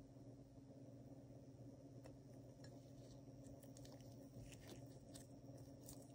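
Near silence: a steady low hum, with faint clicks and rustles of latex-gloved fingers handling a silver coin, bunched about four to six seconds in as the coin is turned over.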